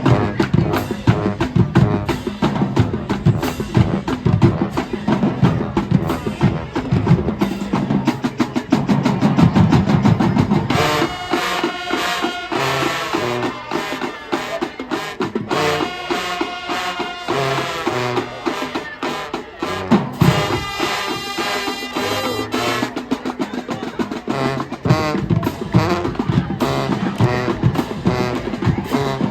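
High school marching band playing: the drumline of snare and bass drums carries the first ten seconds or so, then the brass comes in over the drums in punchy phrases broken by short stops.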